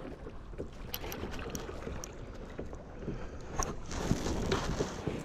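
Water splashing and lapping around a kayak on a flowing river, with wind rumbling on the microphone and a few small knocks; it swells louder a little past the middle.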